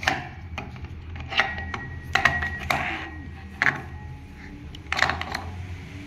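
Metal motorcycle clutch parts (the clutch basket with its toothed primary gear, and the clutch hub) handled and set down: a string of about seven sharp clacks and knocks, two of them leaving a short metallic ring.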